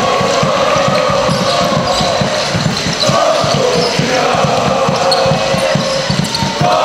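A crowd of basketball fans singing a chant together in a sports hall, with long held notes, over a fast run of low thuds about four or five a second.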